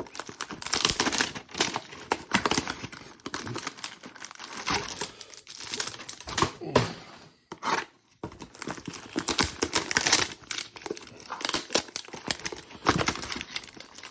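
Thin cardboard hanger boxes of trading cards being cut and torn open by hand: irregular tearing, scraping and crinkling, with a brief lull about eight seconds in.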